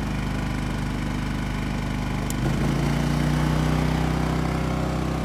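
Champion 3400-watt dual-fuel inverter generator running on propane in economy mode, its small single-cylinder engine purring steadily. About halfway through, the engine speed picks up slightly and it gets a little louder.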